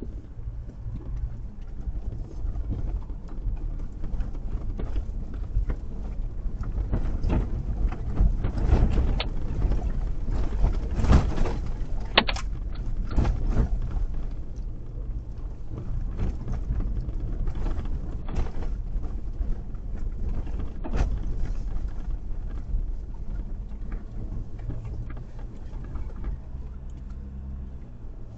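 A vehicle on the move: a continuous low rumble with frequent short knocks and rattles.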